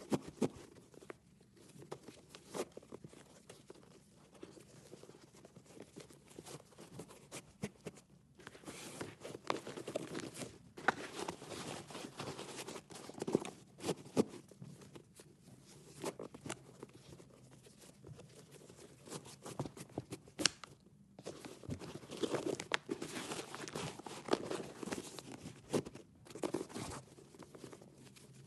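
Shoelaces being tied on a shoe: irregular rustling and scraping of the laces as they are pulled and looped, with many small sharp clicks, pausing briefly twice.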